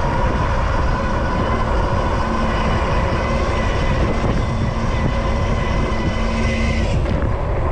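Super73 ZX electric bike under way in traffic: heavy wind rumble on the microphone with a steady high whine from the bike's electric motor, which fades out near the end.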